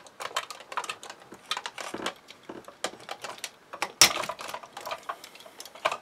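Hard plastic parts of a RoboSapien robot toy clicking and clacking irregularly as they are handled and worked apart by hand, with one louder knock about four seconds in.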